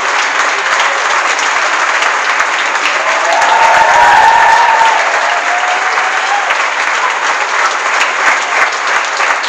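Audience applauding steadily, with a voice calling out above the clapping about four seconds in. The applause cuts off abruptly at the end.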